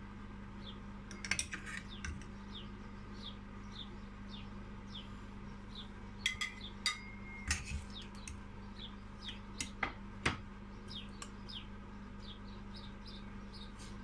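Metal spatula clinking and scraping against a nonstick pot while boiled potatoes are lifted out of the water, in several bursts of sharp clinks with a brief metallic ring. Under it runs a steady low hum, and a small bird chirps about twice a second.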